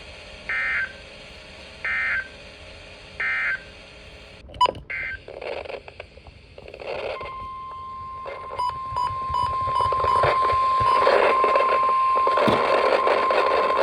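Emergency Alert System broadcast: three short bursts of warbling SAME data tones, the end-of-message code closing the previous alert. After a click and some radio static, the steady single-pitch NOAA Weather Radio 1050 Hz warning alarm tone starts about seven seconds in, with static growing louder beneath it.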